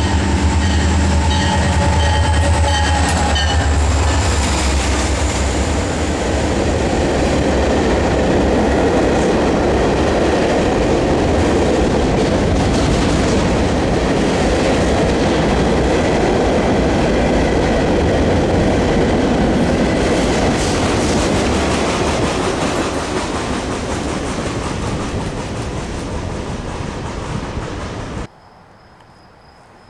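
A train rolling past at close range: a steady rush of wheels and rails with clickety-clack, with a low rumble and a few steady tones at first. The sound slowly fades, then cuts off abruptly near the end.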